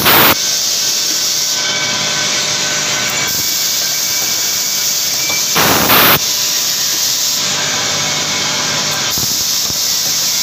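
Eye drop filling and capping machine running steadily, with a short loud burst of air hiss at the start and again about six seconds in as a pneumatic station cycles.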